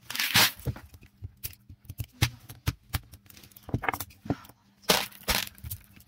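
Small steel balls clicking against each other and rattling in a plastic basket: two longer rattling scrapes, one just after the start and one about five seconds in, with scattered single clicks between.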